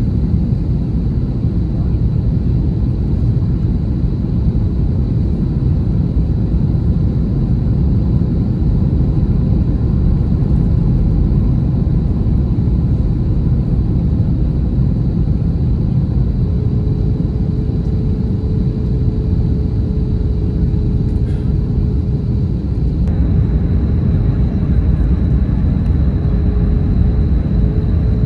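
Steady low cabin rumble of an Airbus A321-231 jet airliner with its IAE V2500 engines during landing. A faint steady tone joins about halfway through, and the noise turns brighter and hissier about 23 seconds in.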